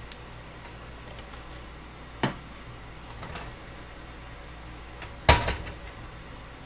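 Two sharp knocks of kitchen things being handled, about three seconds apart. The second is louder and trails off in a few quick rattling clicks, over a steady low hum.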